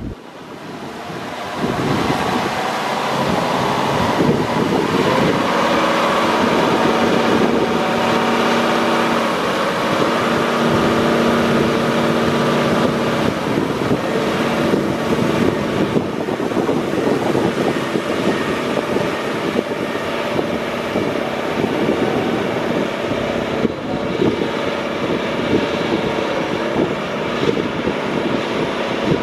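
The John Deere 9620R four-wheel-drive tractor's 14.9-litre Cummins six-cylinder diesel running, growing louder over the first two seconds and then steady, its note wavering in pitch now and then.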